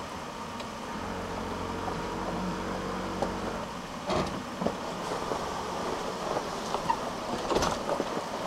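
Four-wheel drive crawling slowly along a rough dirt track, heard from inside the cabin: a low engine hum, clearest for a couple of seconds near the start, with scattered knocks and rattles as the vehicle jolts over the ruts.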